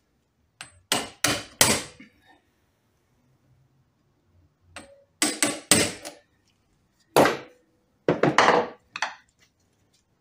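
Hammer blows on a hand impact driver, metal on metal, in three quick bursts of about four or five strikes each, some ringing on briefly. They are breaking loose the tight long screws at the back of a Bosch starter motor.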